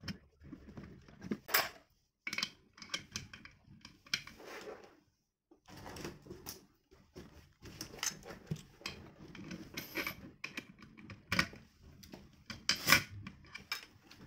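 Small steel parts and hand tools clicking and clacking against the metal housing of a spring balancer as it is worked on by hand. The clicks come irregularly, with two short silent breaks.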